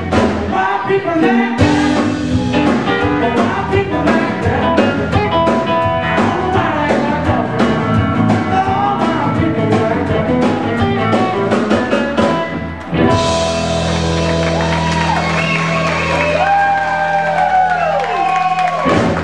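Live electric blues band playing, with guitar, bass, drums and singing. About two-thirds of the way through it cuts abruptly to another passage, where bent, sliding electric guitar lines play over held bass notes.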